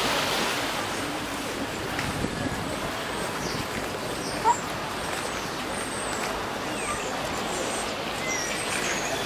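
Busy street and market ambience: a steady wash of background noise with a faint murmur of crowd voices, short high chirps now and then, and one brief sharp squeak about four and a half seconds in.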